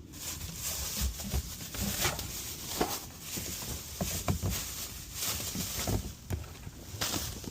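Irregular footsteps with knocks and rustles close to the microphone, about two or three a second.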